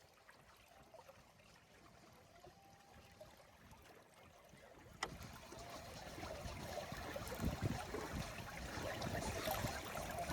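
Water lapping and trickling against the hull of a Catalina 22 sailboat under sail. It is faint at first and grows louder and splashier after a sharp click about halfway through.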